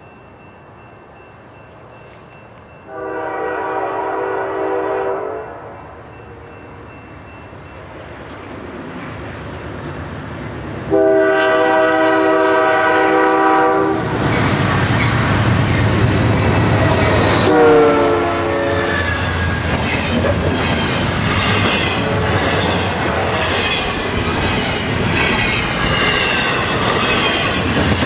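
Diesel freight locomotive horn sounding a long chord about three seconds in and a louder one about eleven seconds in; a third sounding drops in pitch as the lead locomotive passes close by. From about fourteen seconds in comes the loud, steady roar of a long double-stack container train passing at speed.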